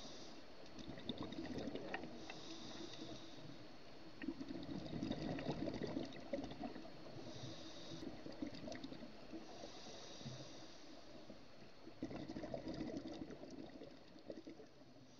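Scuba diver breathing through a regulator, heard underwater: repeated hissing inhalations alternating with rushing, bubbling exhalations, a few seconds apart, fading out near the end.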